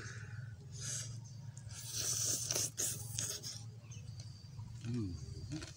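Eating sounds: a man chewing and smacking on roasted chicken with sambal, with small wet clicks and a couple of breathy hisses, and a short falling hum of enjoyment about five seconds in.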